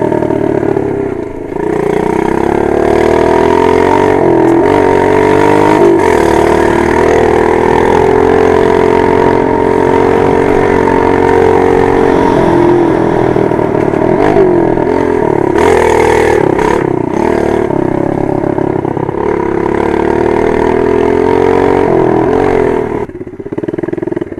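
A 110cc four-stroke dirt bike engine being ridden under throttle, its pitch rising and falling as the throttle is worked. It eases off briefly near the start and again about halfway through. A few knocks come from the bike around two-thirds of the way in, and the throttle closes near the end.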